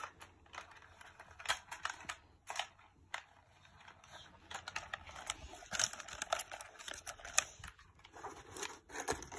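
Cardboard box and a folded plastic toy drone being handled as the drone is packed away: scattered light clicks, taps and scrapes at irregular intervals.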